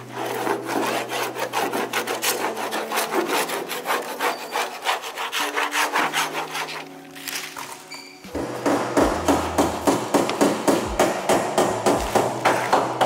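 Steel paint scraper rasping in rapid, even strokes across a car's steel body panel, lifting paint that a chemical stripper has softened and blistered.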